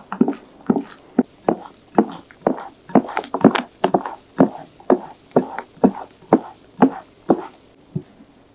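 Silicone spatula folding meringue into a thick batter in a glass bowl, with a short, wet knock at each stroke, about two a second. The strokes stop near the end.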